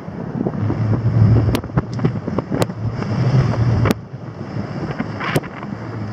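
Wind buffeting the camera's microphone in uneven low rumbling gusts, with four sharp clicks scattered through it.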